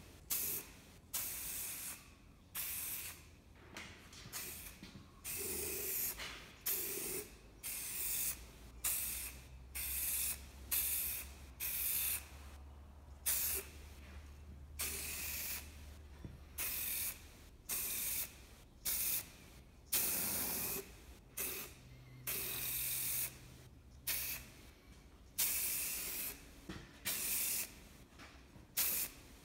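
Aerosol can of matt black spray paint hissing in short repeated bursts, roughly one a second, as paint is sprayed in quick passes.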